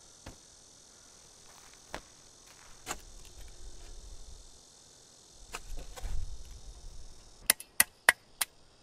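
Shovel digging into dry dirt, with scattered knocks and low scraping as the blade bites and lifts soil, then four sharp clicks in quick succession near the end. A steady chirring of crickets runs underneath.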